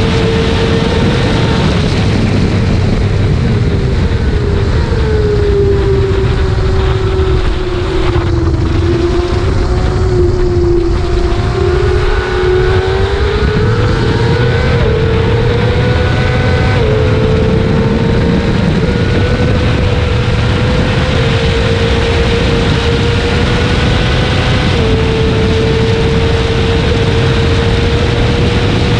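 Sportbike engine running hard at high revs, heard from onboard over heavy wind rush. Its pitch sinks slowly over several seconds as the bike slows, then climbs back as it accelerates, with a small step near the end like a gear change.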